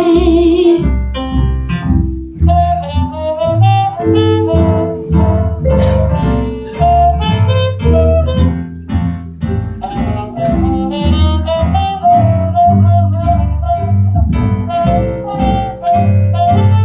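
Live small-group jazz with no singing: a reed instrument plays a melody over double bass, with vibraphone.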